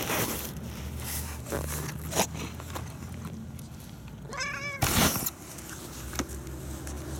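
Domestic cat meowing once, a short call about four seconds in. Around it are brushing and knocking noises as the cat's body rubs against the microphone, the loudest just after the meow, over a low steady rumble.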